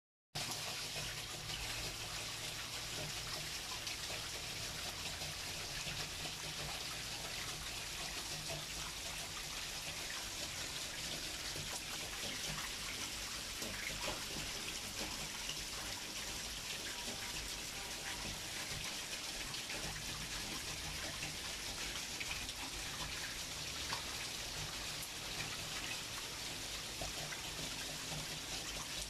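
Steady rain falling: a constant even hiss with scattered sharper taps of drops.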